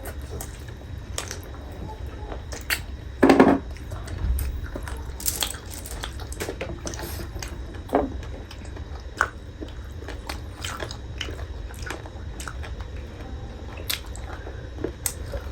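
A person eating: biting and chewing with many short, sharp mouth clicks. One louder, longer noise comes about three seconds in.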